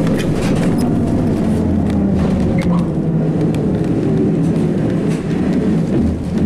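Interior noise of a ZiU-682G-016.05 trolleybus under way: a steady low rumble with frequent short rattles and clicks throughout.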